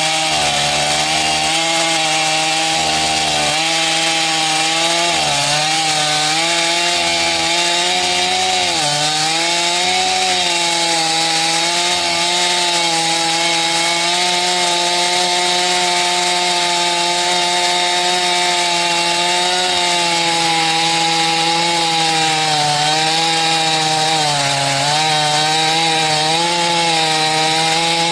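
Two-stroke chainsaw running at full throttle in an Alaskan chainsaw mill, ripping a cedar log into boards. The engine note holds steady with several brief dips in pitch along the cut.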